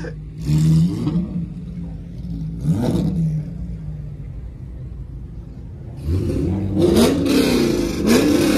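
Car engine idling and revving in short blips, one about half a second in and another near three seconds. From about six seconds in it revs repeatedly and louder over a rushing noise.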